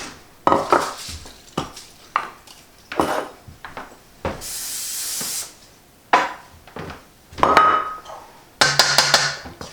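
Kitchenware clinking and knocking: dishes and utensils being handled. About four seconds in, a one-second hiss of aerosol cooking spray coating a casserole dish.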